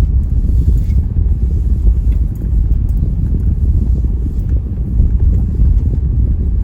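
Car driving slowly, with a steady low road and engine rumble heard from inside the cabin.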